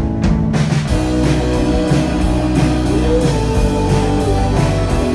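Rock band playing live: electric guitars over drums, the full band with cymbals coming in about a second in.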